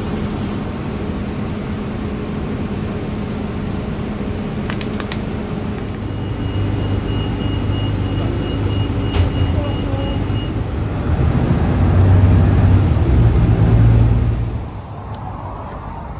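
City bus heard from inside while riding: a steady low engine and road rumble that swells louder for a few seconds near the end, then drops away. A faint steady high tone sounds for a few seconds in the middle.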